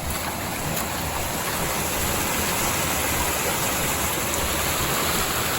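Small waterfall pouring over rocks: a steady, even rush of falling water.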